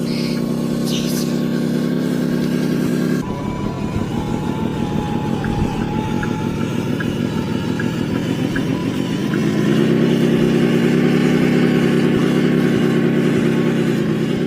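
Engine sound of the RC military truck, running steadily. About three seconds in it cuts abruptly to a rougher engine note, which grows louder about nine and a half seconds in.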